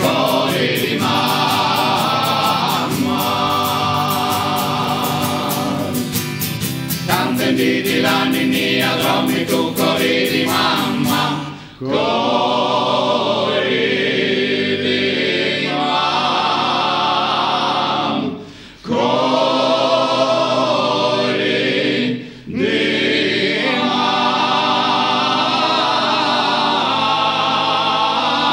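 Male vocal group singing unaccompanied Sardinian polyphony, several voices holding chords together in the traditional Gallurese style. The singing breaks off briefly between phrases about 12, 18 and 22 seconds in.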